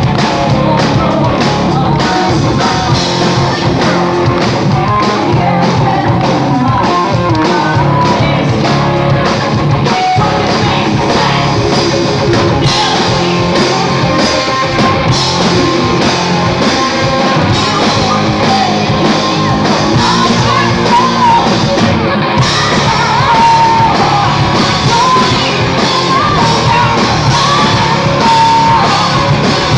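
Live rock band playing through a PA: electric guitars, bass and drums, with a woman singing lead.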